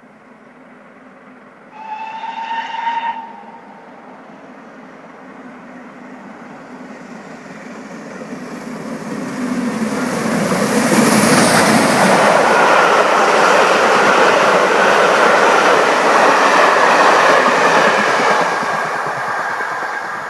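Steam locomotive whistle sounding once, briefly, about two seconds in. GWR Castle class 4-6-0 no. 5043 then runs through the station at speed with its train. The noise of the engine and carriages on the rails swells from about eight seconds in, is loudest for most of the second half, and fades near the end.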